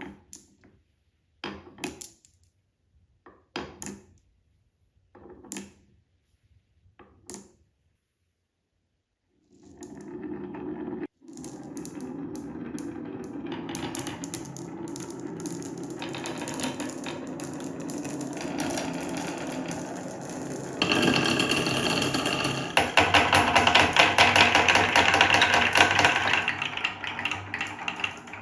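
Marbles rolling and clattering down a wooden marble run with wavy HABA slopes. A few separate knocks come about every two seconds at first; then from about ten seconds in a continuous rolling rattle builds and gets louder, turning into a dense, fast clatter near the end.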